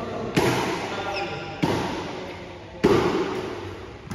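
Badminton rackets striking a shuttlecock in a doubles rally: three sharp cracking hits about a second and a quarter apart, each followed by an echo in the large hall.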